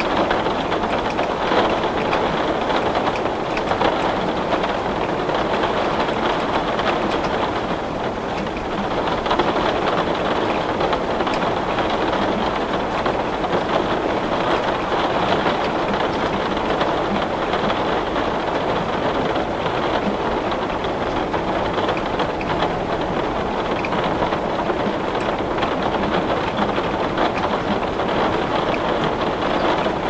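Heavy rain falling on window glass: a steady, dense spatter of drops.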